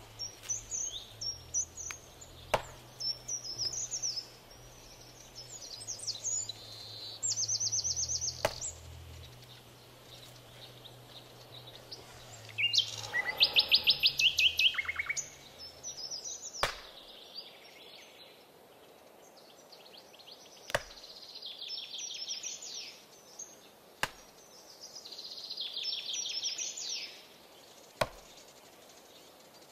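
Forest ambience with many birds chirping and calling, and one loud, rapid trill about halfway through. Single sharp clicks come every few seconds, and a low steady hum stops about halfway through.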